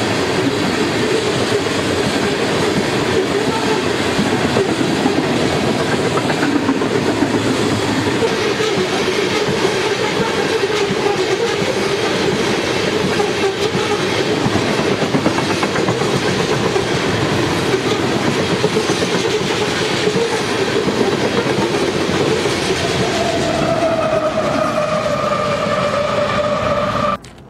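Long freight train of coal hopper cars rolling past at speed, a loud, steady rolling noise. About 23 seconds in, a diesel locomotive's air horn joins it as a steady two-tone blast that sags slightly in pitch. The sound cuts off abruptly just before the end.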